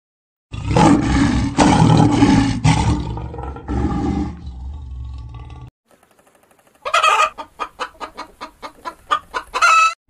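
A loud, harsh, noisy call lasts about five seconds and cuts off suddenly. A little later, domestic hens cluck in a quick run of short calls, about four or five a second.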